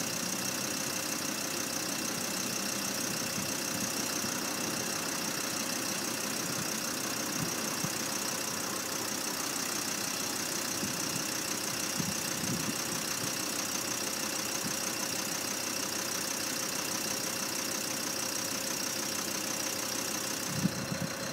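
A steady mechanical hum with a high, even whine over it, unchanging throughout.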